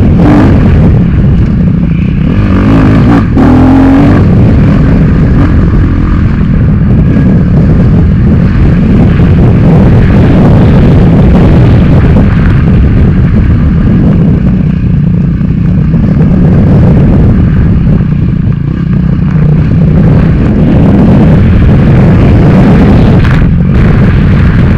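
Dirt bike engine revving up and down under hard riding, heard close from the rider's helmet camera, with a sharp knock about three seconds in.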